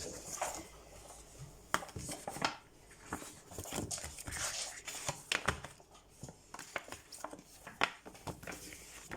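Irregular clicks, taps and soft crinkling rustles of things being handled, a few sharper clicks standing out.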